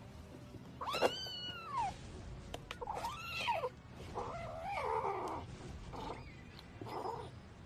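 Kitten giving about four short cries that rise and fall in pitch, one every second or two, while eating dry food from a bowl.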